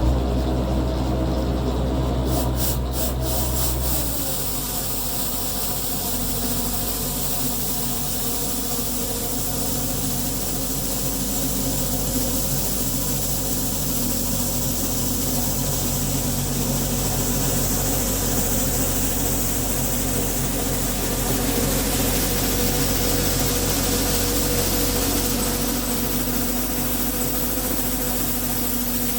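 An engine running steadily under a steady rushing, rubbing noise; the engine's low note drops about four seconds in.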